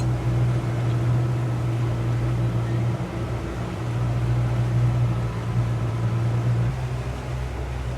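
Motorboat engine running steadily at low cruising speed, a deep continuous hum with wind and water noise over it, easing briefly about three seconds in.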